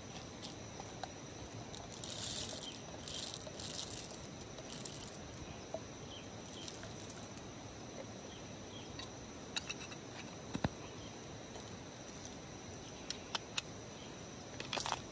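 Insects chirring steadily in the background, with a few short rustles and several sharp small clicks as a steel hand coffee grinder is handled.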